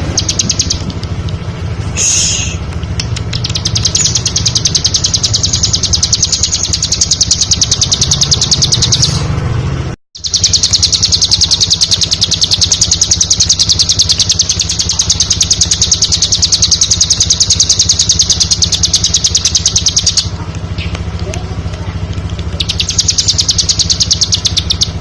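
Bar-winged prinia (ciblek) singing: long runs of fast, evenly repeated high notes, with shorter phrases between them. Near the middle the sound cuts out completely for a moment, then the song resumes. A steady low hum runs underneath.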